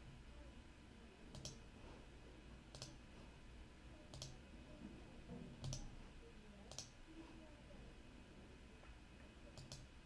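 Computer mouse clicks: about half a dozen single clicks spaced a second or so apart, then a quick double click near the end, over faint room hiss.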